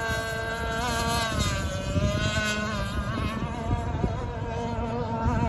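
Enforcer Stingray RC hydroplane running at speed on plane: a high motor whine whose pitch wavers and glides down about a second in, with low wind rumble on the microphone.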